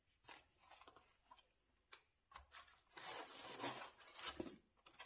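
Rustling and scraping of packaging being handled as an LED ring light and its accessories are moved about in their cardboard box: a few short rustles at first, then denser, louder rustling from about three seconds in.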